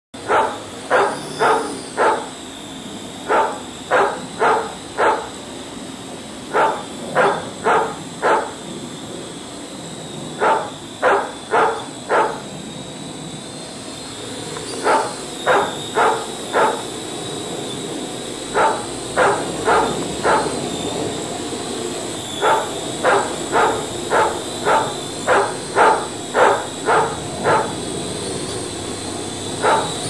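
A dog barking angrily in repeated runs of about four barks, the runs coming closer together toward the end, over a steady high-pitched whine.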